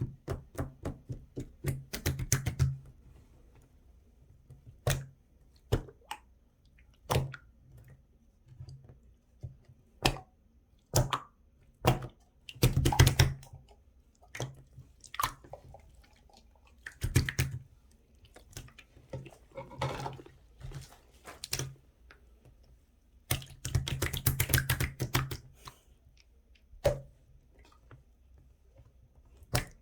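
Irregular clicking and tapping, sometimes single and sometimes in quick runs of taps, over a faint steady low hum.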